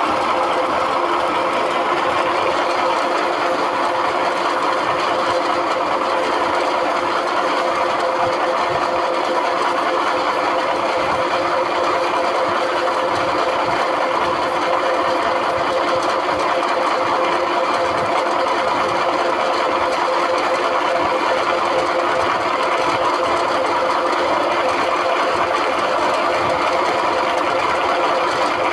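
Small electric flat-die feed pellet mill running under load, its rollers pressing feed mash through the die. It makes a steady mechanical hum with a constant whine and does not change.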